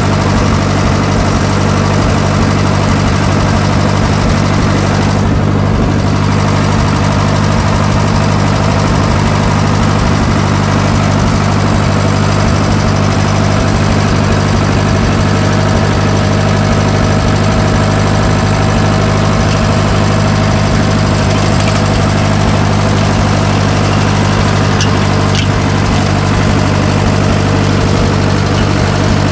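Stump grinder's engine running steadily and loudly with no change in speed.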